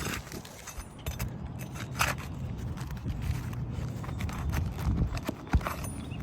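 Hand work on an asphalt shingle roof: scattered clicks, clinks and short scrapes as a bonded shingle is pried at and its nails are pulled, the sharpest scrape about two seconds in, over a low, uneven rumble.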